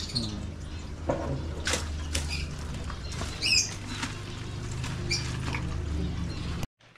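A fish being netted out of an aquarium tank and put into a plastic bag: water splashing and pattering, scattered knocks and rustles, and a short high squeak about halfway through, over a steady low hum. It all cuts off suddenly near the end.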